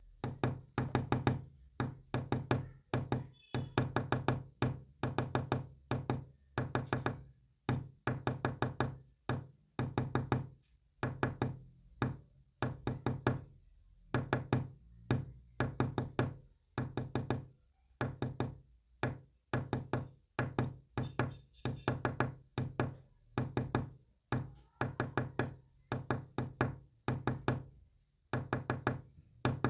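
Sharp knocks tapped out in quick clusters of several taps each, about one cluster a second, as Morse code.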